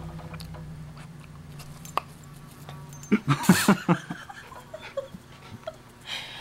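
Poodle giving a brief whine with a few yelps about three seconds in, over a steady low hum that stops as it begins.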